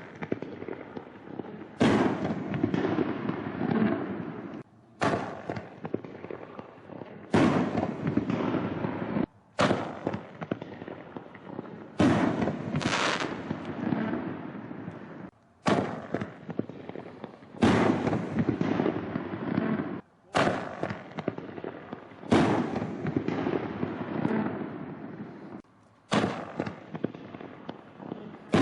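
60-gram canister artillery shells bursting one after another: about a dozen loud bangs, two to three seconds apart, each trailing off in a long crackling rumble. Several of the tails cut off abruptly.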